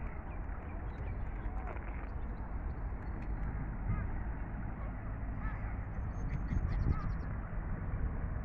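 Scattered calls of waterfowl and gulls, with Canada geese honking among them, over a steady low rumble. A quick run of high chattering calls comes about two-thirds of the way in.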